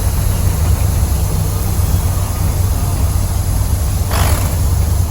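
Cordless 24V air compressor running steadily with a low, buzzing rattle, still inflating the ATV tire just after its bead has seated. A brief hiss of air comes about four seconds in.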